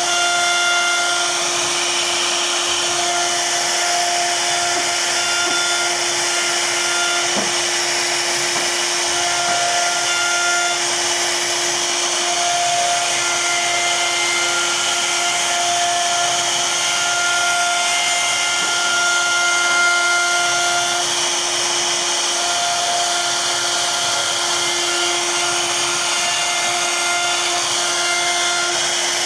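CNC router spindle running steadily while its bit carves a floral relief into a wood panel, giving a continuous hiss of cutting with a steady tone under it. A higher tone comes and goes every few seconds.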